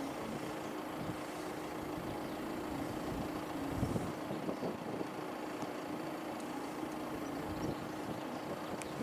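A vehicle engine running with a steady hum, over outdoor background noise.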